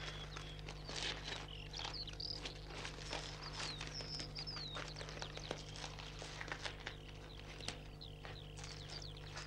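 Faint birds chirping in short falling calls, over scattered light footsteps and shuffling, with a steady low hum underneath.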